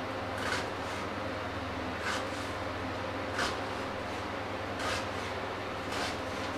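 Kitchen knife chopping an onion on a wooden cutting board: five separate cuts, about one every second or so, over a steady low hum.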